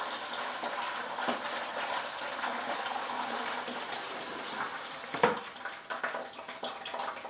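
Water running from a clear plastic tube into a plastic bucket, a steady pouring hiss, with one sharp knock about five seconds in.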